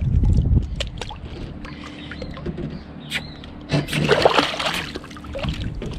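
A hooked fish thrashing and splashing at the water's surface beside a boat, with a louder burst of splashing about four seconds in. A low rumble sits under the first half-second.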